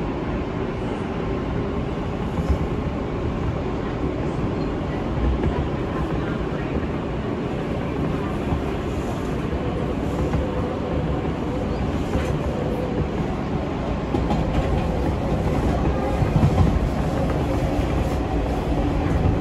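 R160 New York City subway train running on the track, heard from inside the car: a steady rumble with wheels clicking over the rail joints. It grows louder about two-thirds of the way through.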